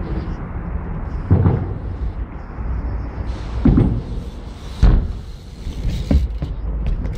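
A steady low rumble with several thuds of a BMX bike on concrete, the sharpest and loudest about two-thirds through as the rider bunny-hops the bar.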